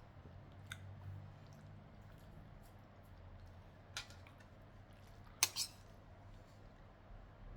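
Faint eating sounds with a few sharp clicks of cutlery against a plate, the loudest a quick double click about five and a half seconds in.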